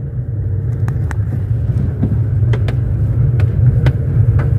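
A car driving slowly on a rough gravel-strewn road, heard from inside the cabin: a steady low rumble of engine and tyres, with scattered sharp clicks throughout.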